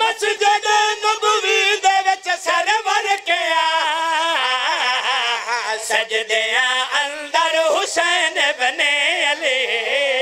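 Men's voices singing a melismatic devotional refrain into microphones, the melody wavering and bending, with short breaks between phrases.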